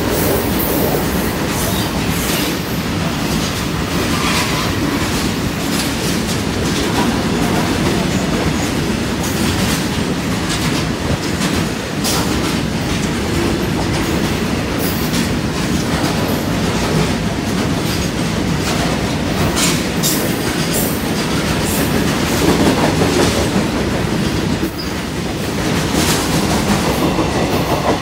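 Indian Railways covered bogie freight wagons (BCNAM/BCNM) running past close by at speed without stopping: a steady rumble of wheels on rail broken by frequent sharp clicks and clatter as the wheels cross rail joints. The brake van passes near the end.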